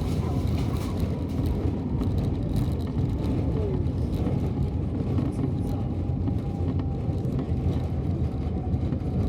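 Steady low rumble of an Airbus A350 heard from inside the cabin as the airliner rolls along the runway after touchdown, slowing toward taxi speed, with a faint tone that slowly falls in pitch.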